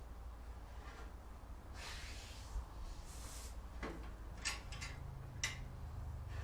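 Handling noises while working on a motorcycle exhaust: a couple of soft scrapes around two and three seconds in, then a few sharp clicks, over a low steady hum.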